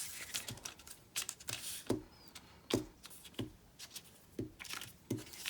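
Paper being handled at a craft table: short rustles and soft taps, several of them spaced out, as paper pieces are glued and pressed down.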